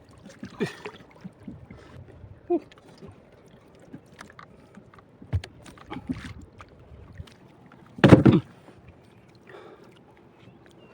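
Water lapping and knocking around a small boat, with scattered short knocks and a louder thump about eight seconds in.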